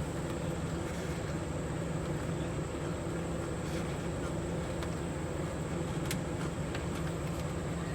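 Steady low mechanical hum with a thin, high-pitched whine over it, and a few faint clicks.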